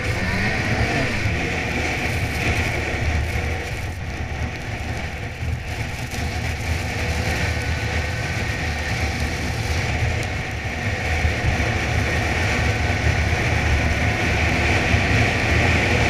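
Ski-Doo Freeride snowmobile's two-stroke engine running at a steady cruising speed, heard from the rider's seat, getting a little louder near the end. Wind rumbles on the microphone underneath.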